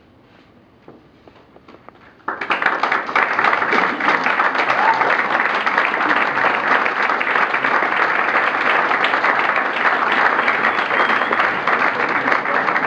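A few scattered claps, then an audience suddenly breaks into full applause about two seconds in and keeps clapping steadily.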